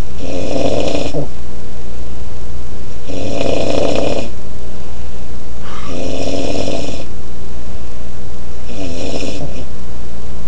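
A man snoring loudly in his sleep, four heavy snores about three seconds apart.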